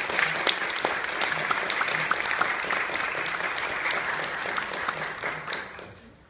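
Audience applauding in a theatre, the clapping thinning and dying away near the end.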